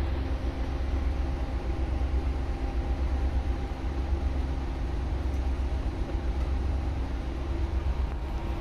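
Steady low drone of a ship's running machinery, heard from inside the exhaust scrubber tower, with a few faint steady humming tones over the rumble.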